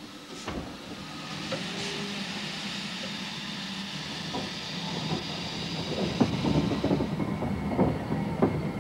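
Great Northern Railway Stirling Single No. 1 steam locomotive at work: steam hissing in the first couple of seconds, then irregular clanks and knocks from its wheels and motion on the track, growing louder and more frequent over the last few seconds.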